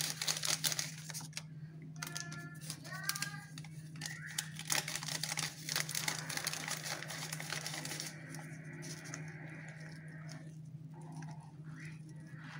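Paper sachets of leavening crinkling and rattling as they are shaken out over flour, many quick small rustles and clicks, with a few short chirp-like tones about two seconds in. Softer rustling near the end as hands work the flour into the dough, over a steady low hum.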